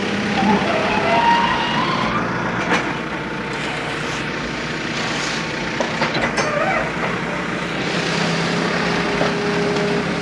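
Heavy vehicle engine running steadily at a roadside work site, with a few sharp clanks and knocks.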